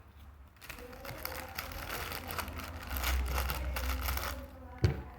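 Thin plastic bag crinkling in quick, irregular rustles as torn pieces of plastic bag are stuffed into a small plastic bag, with one sharp knock near the end.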